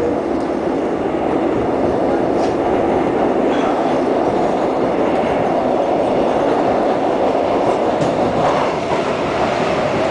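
Seoul subway train running at speed, heard from inside the car: a steady rumble and rush of wheels on the rails, with a few faint clicks.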